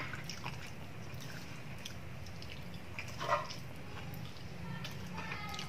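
Quiet eating sounds: a man chewing a spoonful of rice and coconut-milk stew, with faint spoon clicks against the plate over a low steady hum, and a short mouth sound about three seconds in.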